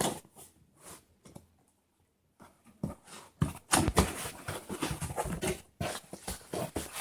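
A cardboard box and its packaging being opened and handled: a few small knocks, then a quiet stretch, then from about three seconds in a steady run of rustling and scraping.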